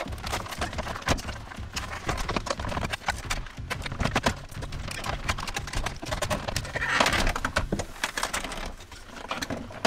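Hard plastic clicks, knocks and rattles as a Volvo XC90's centre-stack control panel is fitted back into the dashboard and pressed home, with a short scraping rush about seven seconds in.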